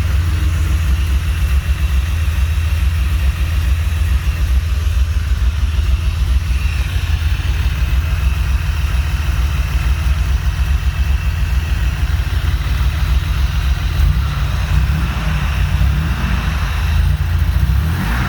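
Honda J35 V6 with Brian Crower camshafts and 12:1 compression, running on stock rocker arms, idling roughly with an uneven, choppy beat: the idle is not yet tuned for the aggressive cams.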